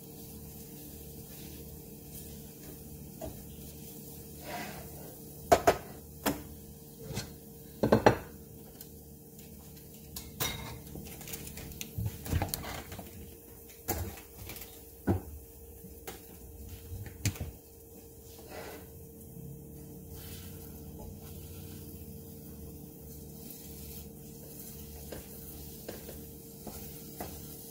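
Kitchen utensils and dishes clinking and knocking against a stainless steel frying pan, about a dozen sharp clatters in the first two-thirds, then quieter. A steady hum runs underneath.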